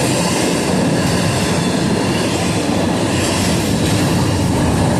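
Train rolling past at close range: a loud, steady rumble of steel wheels on the rails with a hiss of rail noise over it.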